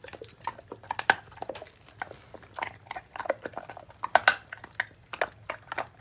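Dogo Argentino crunching a bone in its jaws: a rapid, irregular run of sharp cracks and chewing as it breaks the bone apart with its teeth.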